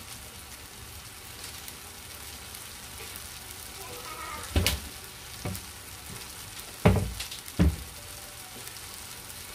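Enoki mushroom, egg and tomato stir-fry sizzling steadily in a frying pan on the stove. Four sharp knocks come in the second half, about 4.5 to 7.5 seconds in, louder than the sizzle.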